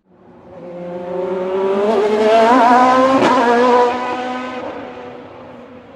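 Race car engine approaching and accelerating, its pitch rising as it gets louder. It is loudest in the middle with a sharp crack a little over three seconds in, then fades away.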